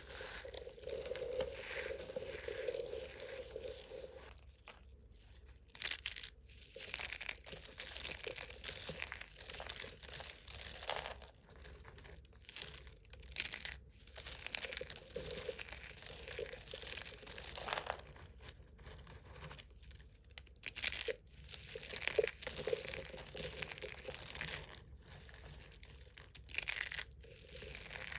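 Thick soap plates being crushed and crumbled, a continuous crackle that comes in bursts broken by short pauses.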